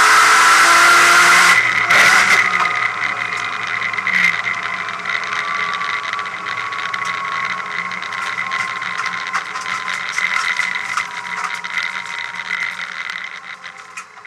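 Race car engine at full throttle cuts out abruptly about two seconds in with a sharp crack, the sign of the gearbox losing fifth gear. The car then coasts with no drive, the drivetrain rattling and clattering over a steady whine that falls slowly in pitch as the car slows, fading out near the end.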